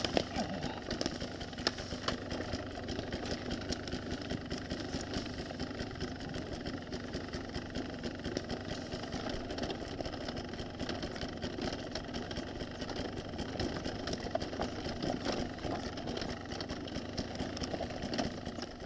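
Enduro motorcycle engine running steadily at low throttle, with frequent rattles and knocks from the bike over rough ground.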